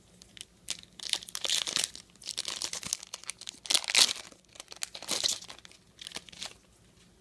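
Trading card pack wrapper being torn open and crinkled by hand, in a run of rustling bursts, the loudest about four seconds in.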